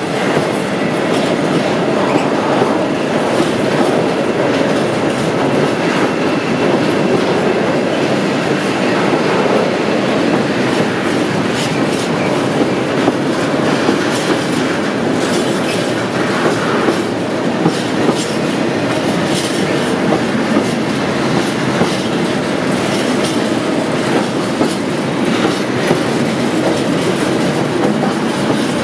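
A freight train of tank wagons running past at speed: a steady, loud rolling rumble with the wheels clattering over the rail joints.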